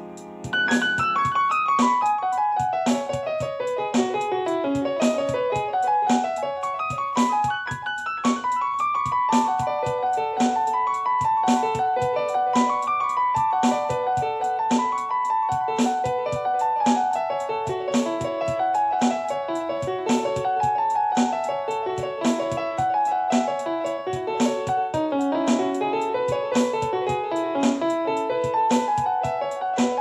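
Piano music: fast runs of notes, rising and falling like arpeggios, over a steady clicking beat.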